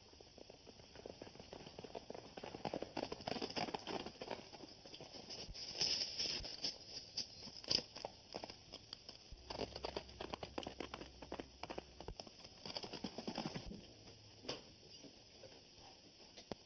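Horse hoofbeats on a dirt road at a fast gait: rapid, dense hoof strikes that swell and fade in waves, loudest in the middle and dying away near the end.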